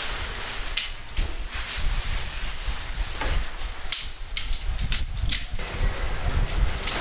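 Sections of a metal shock-corded tent pole clicking against each other as the pole is pulled apart and folded, a sharp click every second or so, over a low rumble.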